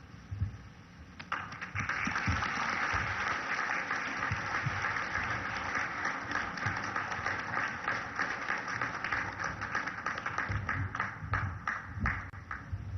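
Audience applauding, starting about a second in and thinning to scattered claps near the end.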